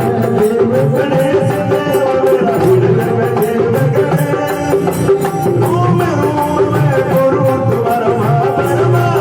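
Instrumental interlude of a devotional bhajan: a sustained keyboard melody over a steady hand-drum rhythm, without singing.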